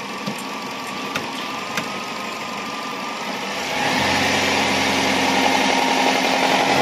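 Buick Regal car engine idling, then raised to a higher steady speed about four seconds in. The engine has low oil pressure, which the mechanic suspects is bleeding off at the camshaft.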